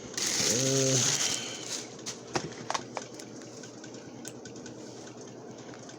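A short vocal sound about a second long right at the start, then faint, scattered clicks and light rustling from hands handling the monitor and its cables.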